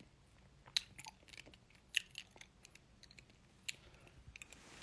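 A person eating candy in the mouth: faint wet mouth sounds with a few sharp clicks and crunches, the clearest about a second in, two seconds in and near the end.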